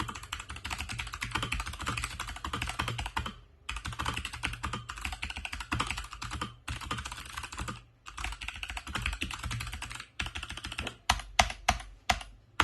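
Typing on an MSI Vigor GK50 Elite mechanical keyboard with clicky Kailh Box White switches: fast runs of keystrokes broken by short pauses. Near the end come a few single, louder key presses.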